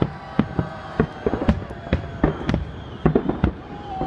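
Aerial fireworks shells bursting in quick, irregular succession, about three or four sharp bangs a second over a continuous low rumble.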